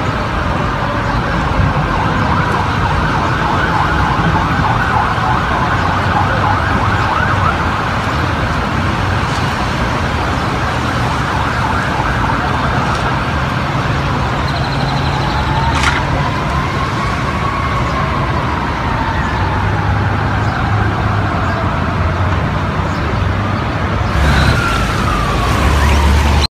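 Emergency vehicle siren wailing in slow rises and falls of pitch, over a steady rushing background noise.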